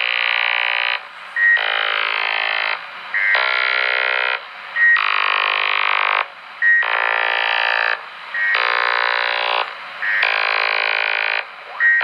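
An unidentified signal received on 27.565 MHz lower sideband by a President HR2510 radio: repeating bursts, each a short steady beep followed by about a second of many tones at once, coming round about every 1.7 seconds. It sounds like musical notes.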